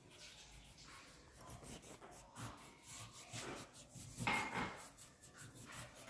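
Coloured pencil rubbing on paper in quick, short back-and-forth strokes as a colouring-book picture is shaded in, with a brief louder sound about four seconds in.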